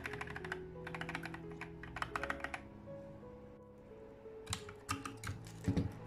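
Keys of a Gamakay MK61 mechanical keyboard with Gateron Optical Yellow switches being pressed in three quick runs of rapid keystrokes. Near the end come a few separate clicks and a knock as a keycap is worked off with a wire keycap puller. Background music plays underneath.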